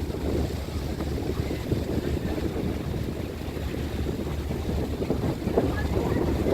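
Wind buffeting the microphone: a low, gusty rumble that swells to a stronger gust near the end.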